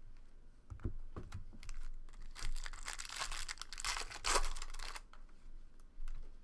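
A trading-card pack wrapper being torn open and crinkled, with a few handling clicks first and the loudest tearing and crinkling in the middle.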